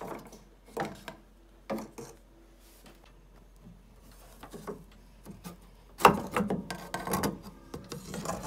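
Howard Miller grandfather clock ticking about once a second, with its wooden case being handled as the side door is opened. About six seconds in comes a loud burst of rubbing and knocking against the wood as an arm reaches inside the case.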